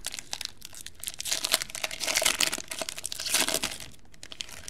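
Silver foil wrapper of a Panini Playbook trading card pack being torn open and crinkled by hand, a dense crackling that dies down about four seconds in.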